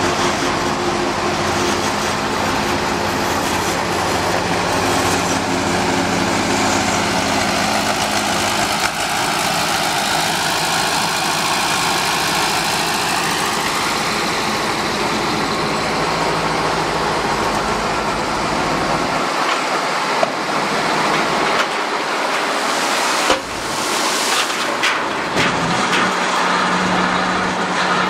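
Diesel engine of a 1959 Menck M60 cable excavator running under load, its tone shifting as the winches work the clamshell grab. A few sharp knocks near the end come from the grab in the gravel.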